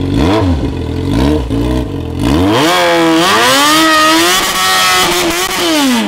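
Yamaha XJ6's 600 cc inline-four motorcycle engine blipped a few times. Then, from about two seconds in, it is revved hard and held high with small dips in pitch, its rear tyre spinning in the pool water. The rush of spray thrown up by the wheel is heard along with the engine.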